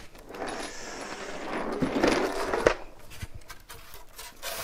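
Wooden shipping crate's lid being lifted off and slid aside, a rough scraping that grows louder and ends in a sharp knock as it is set down, followed by a couple of faint knocks.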